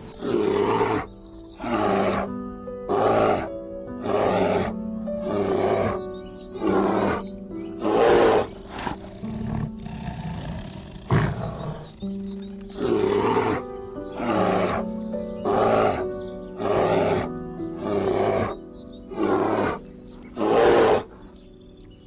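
Series of loud, rasping animal roars, each about a second long and coming roughly once a second, with a pause of a few seconds in the middle, over background music.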